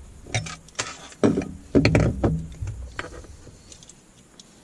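Handling noise: a plastic LED spotlight and its cables being picked up, knocked and slid about on a wooden tabletop, with several clunks and rubs in the first three seconds that then die away.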